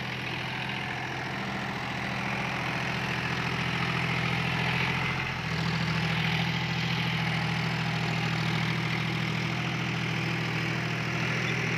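John Deere 5105 tractor's three-cylinder diesel engine running steadily under load, pulling a rotavator through the soil, with the steady noise of the tilling over it. The engine is running freely, not labouring. Its note shifts slightly about five and a half seconds in.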